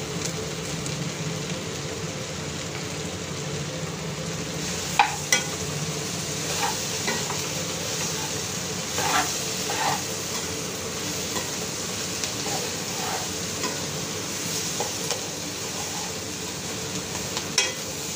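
Jackfruit and onions sizzling as they fry in a metal pot while a metal spoon stirs them. The spoon scrapes and clinks against the pot a few times, about five, nine to ten, and seventeen seconds in.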